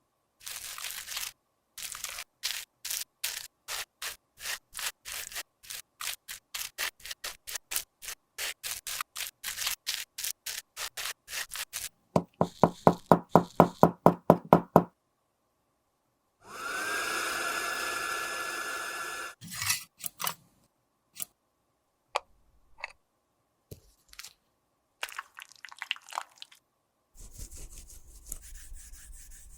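Handling sounds from repairing makeup: a long run of sharp taps or clicks that come faster and faster, then a few seconds of loud rapid rhythmic strokes, then a small motor or blower whirring steadily for about three seconds, then a few scattered clicks.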